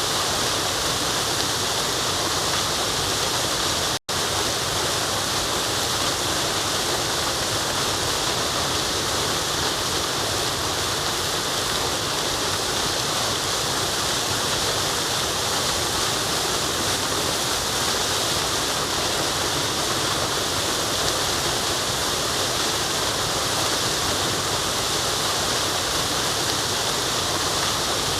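Waterfall rushing steadily, an even hiss of falling water. It cuts out for an instant about four seconds in.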